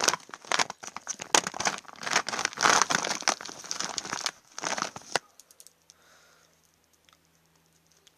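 Chocolate packaging crinkling and rustling in a steady flurry of sharp crackles as a hand rummages through the wrapped chocolates. It stops abruptly about five seconds in, leaving only a faint low hum.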